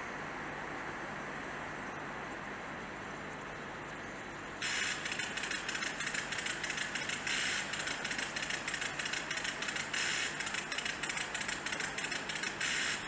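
Steady, even rumble of distant rail traffic. About four and a half seconds in, a loud, rapid clicking rattle starts abruptly and carries on in uneven pulses.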